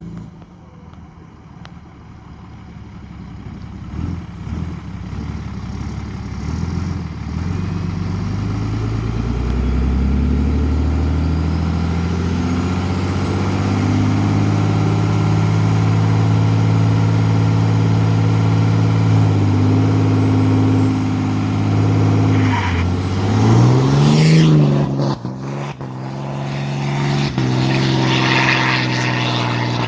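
Ram 2500's 6.7-litre Cummins turbo-diesel, deleted and tuned, building boost and pulling hard. Its engine note climbs for about twelve seconds and then holds. Over it a loud turbo whistle from the HXR-649 turbo with T51R mod rises to a high pitch and holds. About 24 seconds in, a sharp rising whistle and a few clicks come as the revs drop, followed by a rushing noise.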